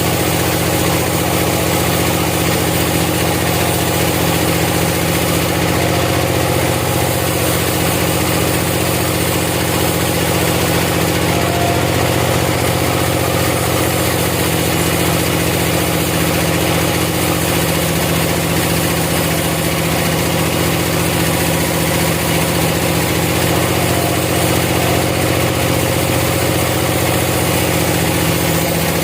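A sawmill's engine running steadily at an even speed, with no change in pitch.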